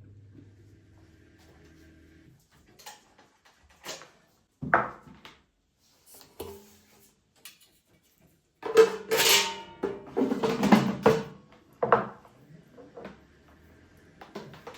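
Hard household objects being handled and set down: scattered single knocks and clicks, then a dense run of clattering with some ringing about nine to eleven seconds in.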